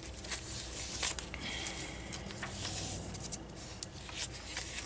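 Pages of a handmade junk journal turned and handled: soft paper rustling and brushing, with a few light clicks and taps.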